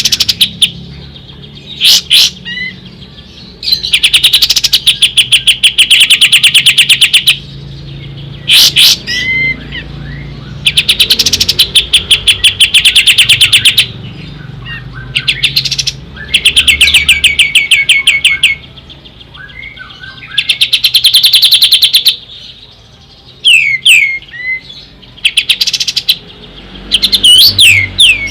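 Kapas tembak singing: loud bursts of very fast repeated notes, each burst lasting two to three seconds, alternating with short sweeping whistles, repeated over and over.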